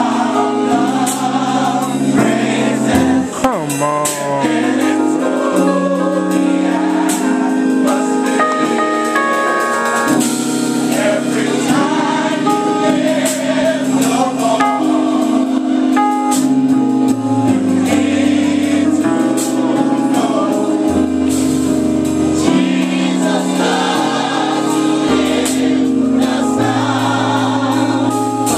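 Gospel choir singing with live band accompaniment of sustained keyboard chords and a moving bass line.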